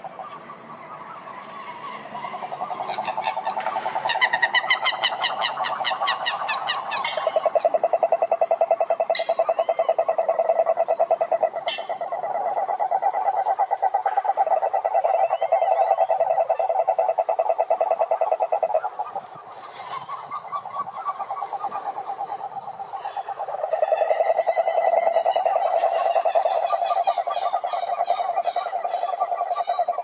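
A chorus of cururu toads: several males giving long, pulsing trills that overlap at slightly different pitches, with faster, higher-pitched trills joining in a few seconds in and again near the end, and a brief lull about two-thirds through. This is a breeding chorus, with pairs already in amplexus.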